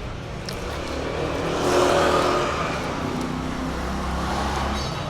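A car drives past on the street. Its engine and tyre noise swell to loudest about two seconds in, then fade to a lower engine hum.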